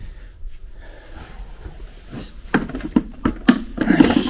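Knocks and clatter of small hard objects being handled, a few faint ones at first, then several sharp knocks close together in the second half.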